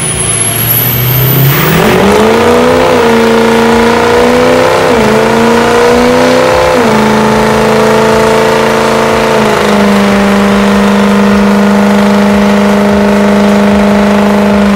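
Ford Super Duty pickup's diesel engine revving hard into a burnout, its rear tyres spinning. The revs climb sharply about two seconds in, dip briefly twice, then hold steady and high to the end.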